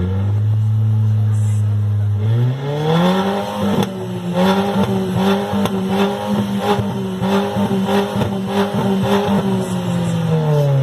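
Chevrolet Astra four-cylinder engine revved loudly through an aftermarket exhaust diffuser. It holds steady revs, climbs about two seconds in to a high held rev with crackles in the exhaust note, and drops back near the end.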